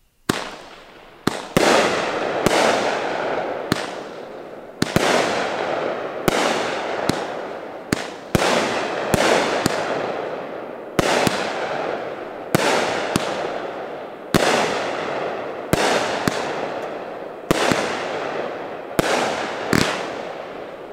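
Dominator Red White and Blue 200-gram cake firing a steady series of shots about a second apart. Each shot is a sharp bang trailing off into a fading crackle from its strobing stars.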